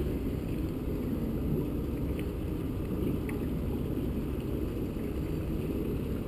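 Steady low rumble of wind buffeting the camera microphone, with no distinct events.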